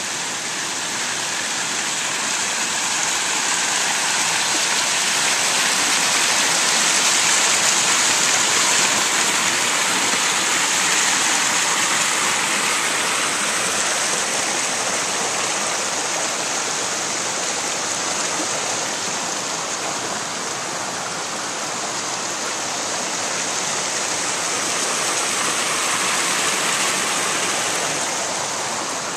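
Water splashing from spouts and spilling over the low stone weirs of terraced garden pools: a steady rush that grows louder about a quarter of the way in and eases off a little before swelling again near the end.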